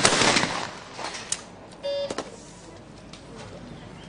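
A skeet shotgun fires right at the start, the second of two shots less than half a second apart, and its report echoes away over about half a second. A few light clicks follow, then a short beep about two seconds in.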